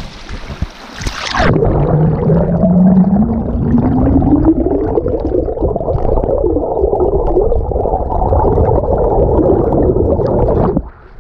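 Flowing creek water heard with the microphone underwater: after a short open-air rush of stream and wind, the sound goes muffled and low about a second and a half in, with a hum that glides slowly up in pitch, and it cuts back to open air near the end.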